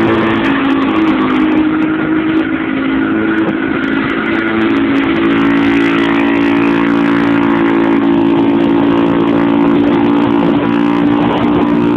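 Piaggio Liberty 50 scooter engine running loudly through a burst exhaust while riding, its note shifting slightly up and down with the throttle.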